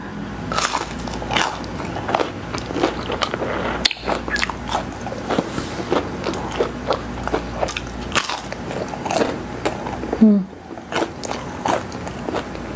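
A person biting into and chewing McDonald's chicken nuggets dipped in barbecue sauce: many short, irregular chewing sounds one after another, with one louder sound about ten seconds in.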